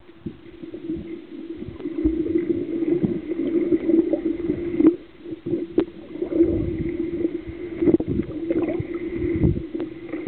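Water sloshing and bubbling heard underwater, from a snorkeler's swimming strokes, in irregular surges that grow louder after about a second. Under it runs a steady low drone.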